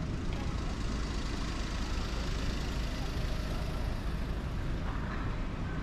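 Steady city street ambience: a low traffic rumble that swells slightly about halfway through.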